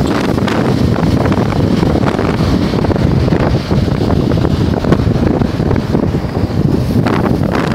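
Strong wind buffeting the microphone: a loud, ragged, unbroken rumble.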